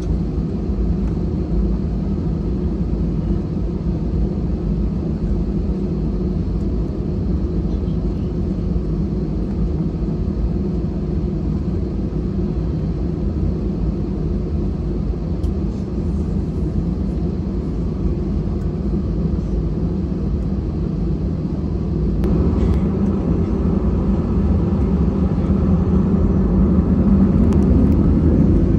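Cabin noise of an Airbus A320-214 taxiing with its CFM56 jet engines at low thrust: a steady rumble. About twenty-two seconds in the engine noise grows louder, and it keeps rising toward the end.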